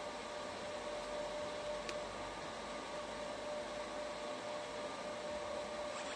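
Fiber laser marking machine running while it marks a nameplate: a steady fan hiss with a constant hum.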